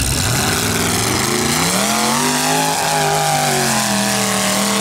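Modified mud-racing pickup's engine revving hard as the truck launches and drives through the mud pit. The engine pitch climbs over the first couple of seconds, then holds high.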